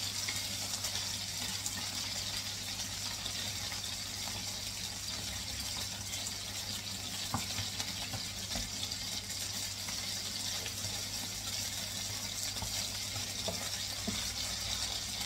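Chicken breast strips sizzling in oil in a non-stick frying pan, a steady frying hiss, with a few light clicks of the wooden spatula and chopsticks turning them. A low steady hum runs underneath.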